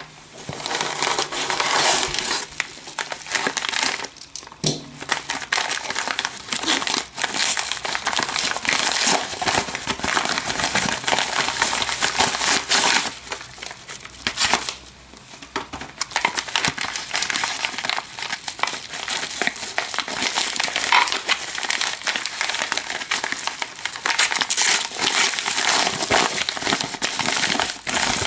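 Paper packaging rustling almost continuously as a yellow padded mailer and crumpled kraft packing paper are handled and pulled out of a cardboard box. It goes briefly quieter about four seconds in and again around fourteen seconds.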